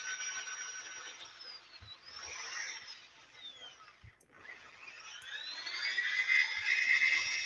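Power sanding of a maple burl platter on the lathe with a sanding disc in a corded drill: a hissing whine from the drill that falls in pitch a little after a second, nearly dies away about four seconds in, then rises back up to a steady speed.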